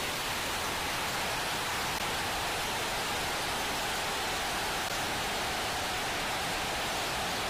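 Stadium crowd roaring after a goal: a steady, even wall of noise with no rise or fall.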